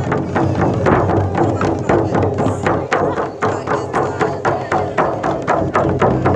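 Several hand-held frame drums beaten together in a steady, fast pulse of about five beats a second.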